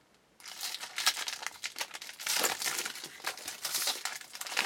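Foil wrapper of a baseball card pack crinkling and crackling as it is handled and torn open. The crinkling starts about half a second in and goes on irregularly.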